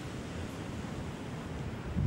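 Wind buffeting a camcorder microphone outdoors: a steady rushing noise with a low, uneven rumble.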